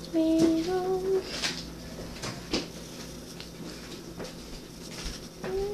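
Pencil lead scratching and tapping lightly on paper while drawing. A short steady two-note tone, about a second long, sounds at the start and again near the end.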